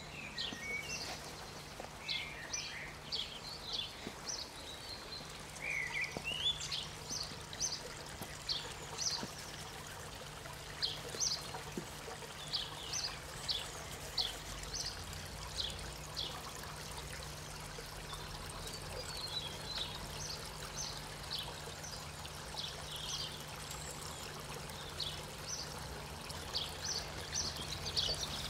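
Water pouring from a pipe into a garden pond in a steady trickle, under a low steady hum, with many short high chirps scattered throughout.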